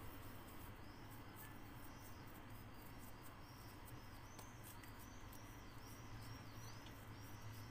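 Faint, high, repeated chirping, about two short arched chirps a second, starting about two seconds in, over a low steady hum.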